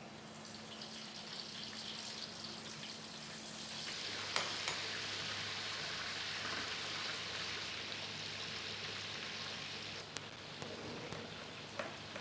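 Food frying in a pan: a steady sizzle that grows louder about four seconds in, with a few sharp clicks.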